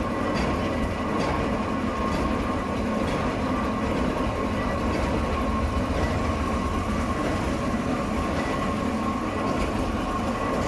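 A machine running steadily: a constant low rumble with a steady high whine over it.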